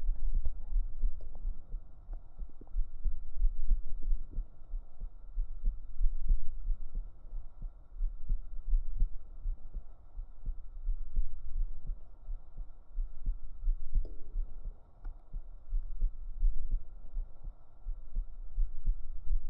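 A person's real heartbeat recorded up close at the chest with binaural microphones: deep, muffled thumps that repeat.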